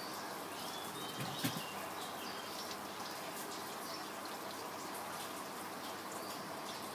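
Steady background hiss with faint bird chirps about a second in, and a single soft knock about a second and a half in.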